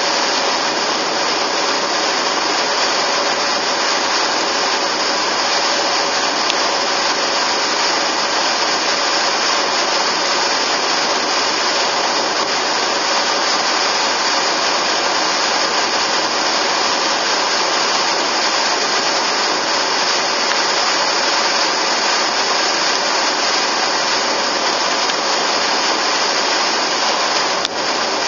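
Steady road, wind and engine noise of a car driving at speed, heard from inside the car as an even hiss. There is a short click near the end.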